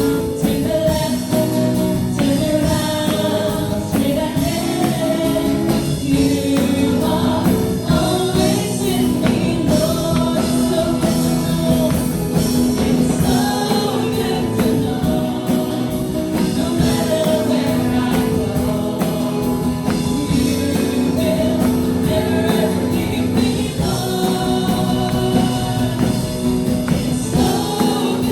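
Live praise-and-worship music: a group of voices singing a gospel song together over a band with a steady beat and tambourine, continuous and loud.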